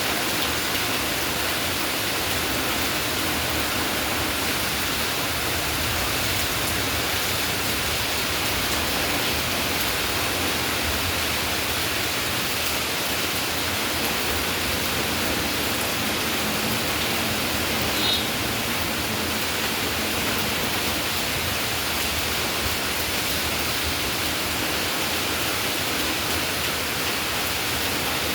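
Steady rain falling, a continuous even hiss. A brief high chirp sounds about two-thirds of the way in.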